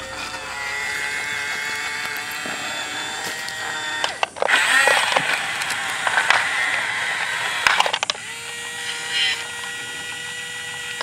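Small electric gear motors of a remote-control toy bulldozer running with a steady whine and gear buzz, changing pitch and loudness about 4 s in and again about 8 s in.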